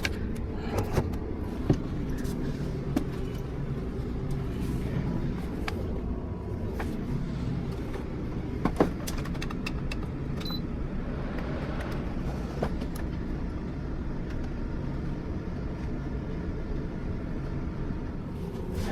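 A steady low drone with a few sharp clicks and knocks scattered through it.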